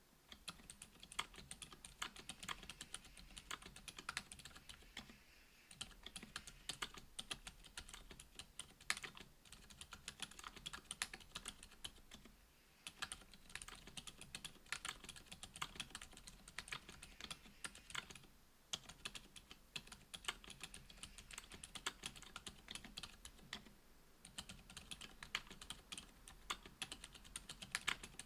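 Quiet, steady typing on a Duck Orion V2.5 mechanical keyboard with lubed Gazzew U4 Boba 62g silent tactile switches, an FR-4 plate and GMK keycaps. The keystrokes come fast and dense, with a short pause roughly every six seconds.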